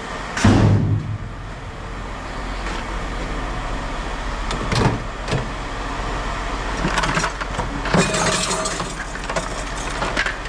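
Scrap items being handled and set down with a loud thud early on, then several metal clanks and rattles, over a steady vehicle engine hum.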